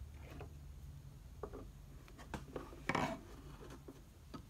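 Light clicks and knocks of metal parts being handled as the pump head is pulled down off a pressure washer's pump, the loudest knock about three seconds in, over a low steady hum.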